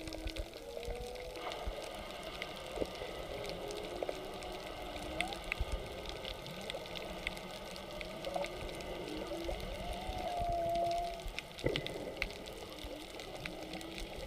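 Humpback whale song heard underwater: a series of moans and short gliding calls, with one longer tone about ten seconds in that rises and then holds, over a steady water hiss with scattered faint clicks.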